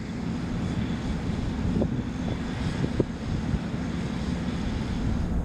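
Small fixed-wing drone's propeller engine running steadily in flight, with a few faint clicks about two to three seconds in.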